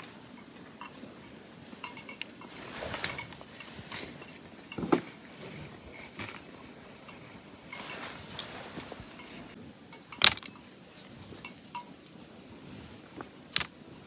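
Bamboo strips and sticks clicking and tapping against each other as a bamboo bird trap is bent and set by hand on dry ground. A few sharp clicks stand out, the loudest about ten seconds in.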